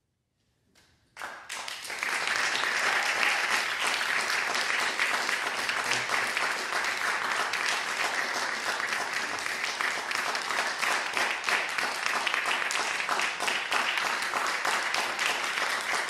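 Audience applauding, starting suddenly about a second in after a brief near-silence and building to full strength within another second.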